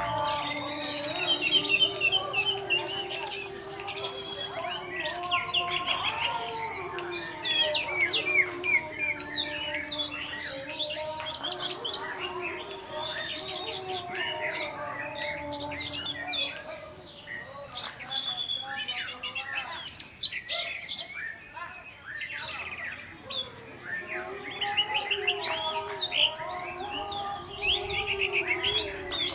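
Orange-headed thrush (anis merah) singing a long, unbroken run of quick, varied whistled phrases and chirps. This is 'teler' singing, a steady trance-like flow used as a lure to get other orange-headed thrushes to sing.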